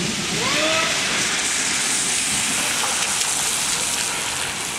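Pontiac Grand Prix GTP doing a donut on wet pavement: a steady hiss of spinning tyres throwing water, with its supercharged 3.8-litre V6 running underneath.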